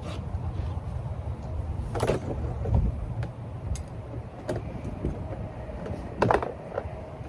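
Beehive parts being handled: a few sharp knocks and clatters, the loudest about two seconds in and again near the end, over a low steady rumble.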